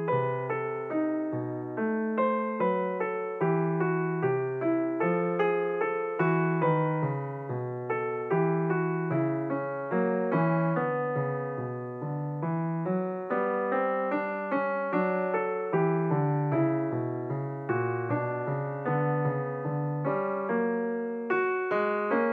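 Background piano music: a steady run of struck notes, each fading before the next.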